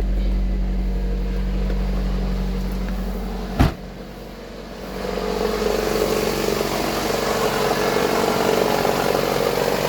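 Toyota RAV4 engine running at idle, freshly started on a replaced battery after a no-start. A single sharp click comes about three and a half seconds in, the level dips briefly, and from about five seconds the engine sound comes back louder and rougher.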